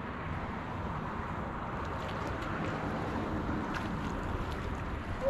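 Steady wind rumble on the microphone over open shallow water, with a few faint splashes from a hooked jack crevalle thrashing at the surface.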